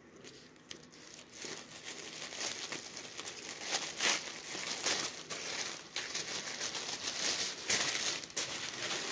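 Tissue paper packing crinkling and rustling by hand as a box is unpacked, an irregular crackle with many small snaps that starts about a second in.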